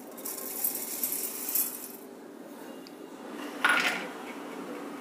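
Dry flattened rice flakes poured into a stainless steel mixer-grinder jar, a light, dry rustle lasting about two seconds. A single sharp clink follows a little past three and a half seconds in.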